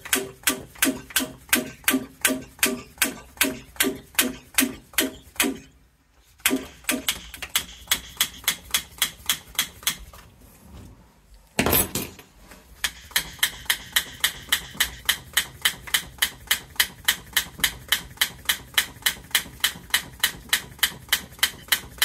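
Small hand pump being worked fast, about three strokes a second, pumping up a combi boiler's expansion vessel through its Schrader valve. Each stroke makes a short squeaky puff, and the strokes are higher-pitched after the second break. The pumping breaks off twice briefly, with one loud knock just before it starts again.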